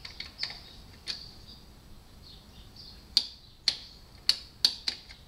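Click-type torque wrench, set to 16.5 lb-ft, tightening a motorcycle's rear brake caliper bolt. A couple of faint clicks are followed, from about three seconds in, by a run of sharp clicks about every half second as the bolt is brought to the set torque and the wrench clicks.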